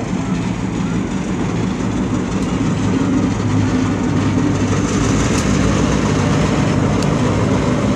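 Diesel engine of a streamlined cab-unit locomotive (Stone Mountain No. 6147) running with a steady low drone as the locomotive rolls slowly past close by. It grows a little louder as it draws nearer.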